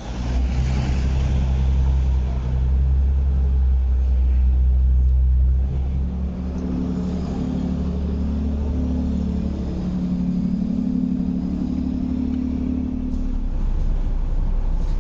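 Steady low engine rumble of an idling motor, a deep hum that eases about six seconds in while a higher drone takes over.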